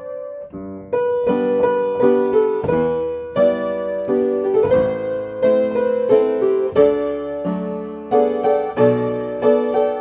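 Upright piano played by hand: a melody over chords, quiet for the first second, then a louder, busier phrase of struck notes that ring and die away.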